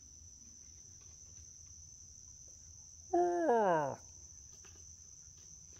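Crickets chirring steadily. About three seconds in comes one loud, drawn-out hoot that slides down in pitch for about a second.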